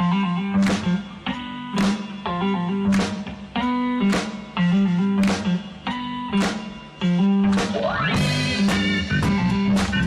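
Instrumental background music led by guitar, with bass and a steady drum beat, and a rising glide about eight seconds in.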